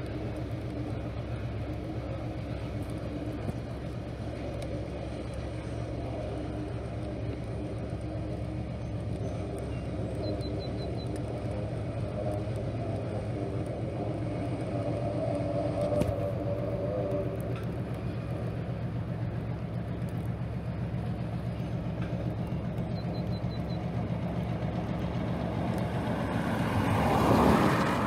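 An EMD diesel switcher locomotive's engine drones steadily at a distance as the train draws near. Near the end a car passes close by, louder than the engine, and fades away.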